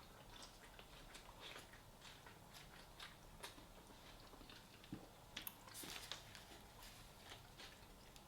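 A person chewing and biting food close to the microphone: faint, scattered soft clicks and crunches, busier about five to six and a half seconds in.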